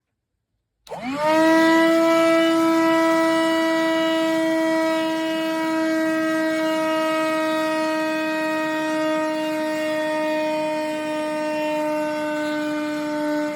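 Black+Decker Dustbuster cordless handheld vacuum switching on about a second in. Its motor whine rises quickly to speed, then holds a steady high pitch.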